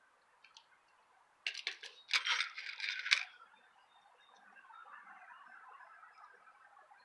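A short run of sharp clicks and clatter, about a second and a half in and lasting under two seconds: hard objects being handled, as when tools or wiring connectors are picked up or set down. Faint rustling follows.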